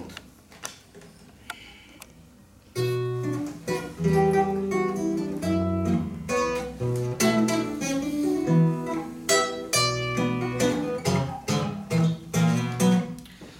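Acoustic guitar playing the instrumental introduction to a song, single plucked notes over a bass line, starting about three seconds in after a few quiet clicks.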